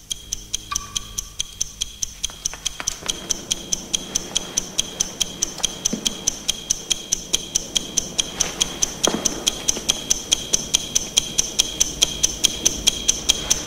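Clock ticking steadily and fast, about four sharp ticks a second.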